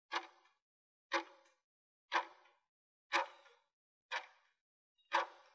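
Countdown timer ticking sound effect: one sharp tick a second, six ticks, each with a short ringing tail, as the answer timer runs down.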